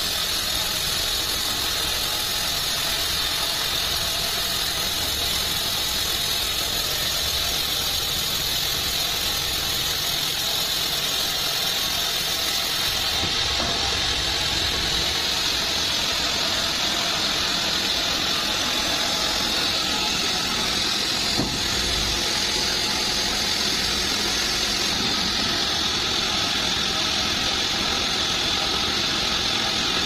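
Homemade band sawmill running steadily: an even, high hiss that never lets up, with one small tick about twenty-one seconds in.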